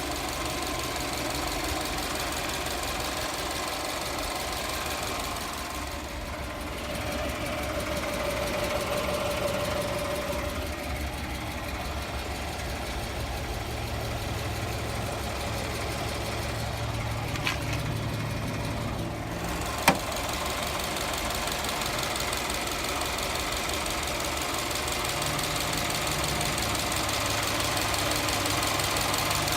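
Subaru Forester XT's turbocharged flat-four engine running steadily with a constant rattling knock, which the owner takes for piston slap that has grown worse since an oil change to Castrol Edge 5W-40. A single sharp click stands out about two-thirds of the way through.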